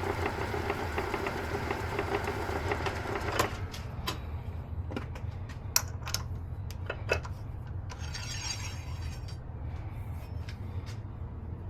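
A 1930s Sheldon metal lathe spinning a brass part while red Scotch-Brite polishes it. The spinning noise cuts off abruptly about three and a half seconds in, leaving a low hum. Scattered sharp clicks and knocks follow, with a brief hissy rattle about eight seconds in.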